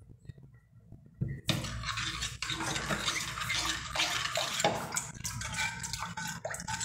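A spoon stirring a wet, liquid mixture in a metal frying pan: sloshing with many scrapes and clinks against the pan, starting about a second and a half in.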